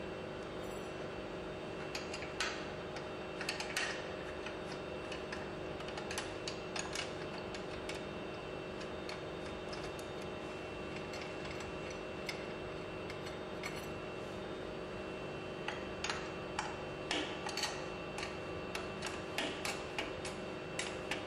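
Scattered metallic clicks and ticks of hand tools working the tie-rod fastenings on a progressive cavity pump, in clusters a couple of seconds in and again near the end, over a steady background hum with a few fixed tones.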